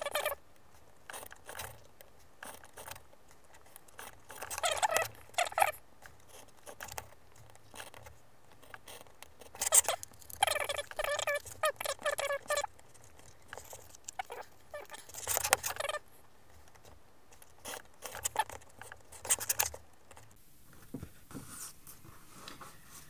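Craft knife cutting through white card along a steel ruler: several runs of scratchy, rasping strokes lasting one to three seconds each, with quiet gaps between.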